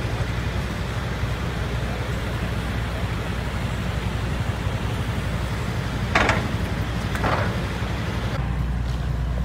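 Cars driving up the loading ramp onto a car ferry, with a steady low engine rumble and two brief louder noises about six and seven seconds in.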